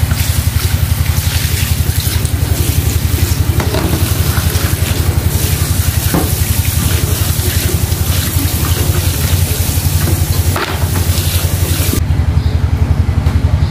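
Tap water running into a steel pan of shellfish while hands rub and stir the shells to wash off sand, with a few clicks of shells knocking together. The water stops about 12 seconds in. A loud, fast-pulsing low hum runs underneath throughout.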